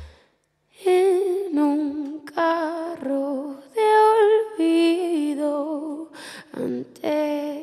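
Solo voice humming a wordless, unaccompanied melody with wavering, ornamented pitch, in short phrases separated by brief breaks. It begins about a second in, just after a preceding music track cuts off.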